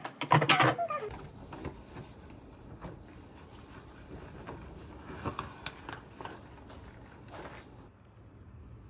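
Short high-pitched cries from a household pet in about the first second, each rising and falling in pitch. Then quiet room tone with a few faint taps and clicks.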